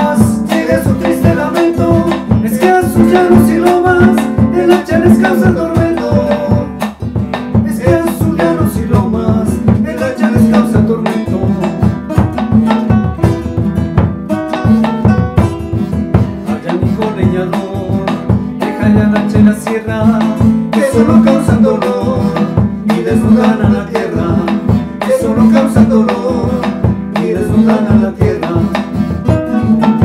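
Two acoustic guitars playing a bambuco, with steady strummed chords and a melody of single notes above them.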